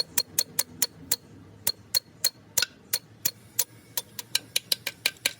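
Rapid light hammer taps on metal, about five a second with a brief pause, each strike giving a short metallic ring.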